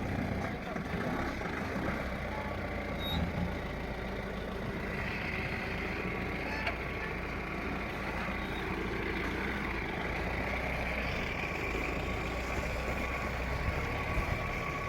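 Pickup truck engine running steadily, with a continuous low rumble.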